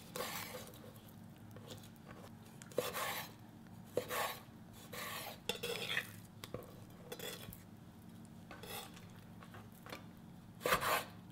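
Chef's knife slicing squid into strips on a wooden cutting board: soft, irregular taps and clicks of the blade meeting the board, several seconds apart, with a faint steady hum behind.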